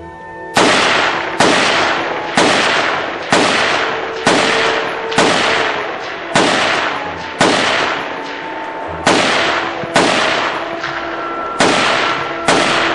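About a dozen single shots from a semi-automatic rifle, fired roughly one a second with a longer pause just past the middle, each crack trailing off in a short echo. Music plays faintly underneath.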